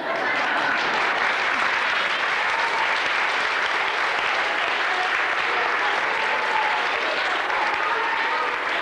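Audience applauding steadily, with a few voices heard among the clapping.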